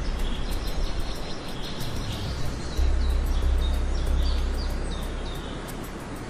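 Wild birds chirping in short, repeated calls over a steady hiss of outdoor ambience, with a deep low rumble that comes in about three seconds in.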